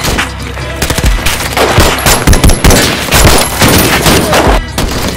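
Rapid gunfire: many shots fired close together in quick bursts, like automatic weapons.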